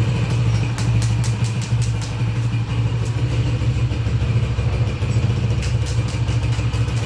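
Honda CG 125's air-cooled single-cylinder four-stroke engine idling steadily, just rebuilt with new piston rings. A light ticking comes and goes over the steady idle.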